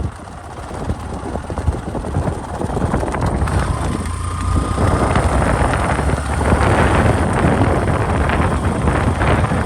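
Wind buffeting the microphone, growing louder over the first few seconds, over the rapid hoofbeats of a galloping horse.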